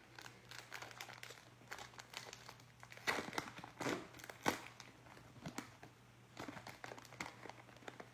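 Foil trading-card pack crinkling and tearing as gloved hands handle and open it, a run of irregular crackles that is loudest from about three to four and a half seconds in.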